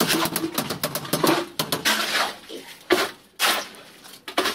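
Metal hand tools scraping and clinking as they work wet concrete: quick sharp scrapes and taps, busiest in the first two seconds, then more spaced out.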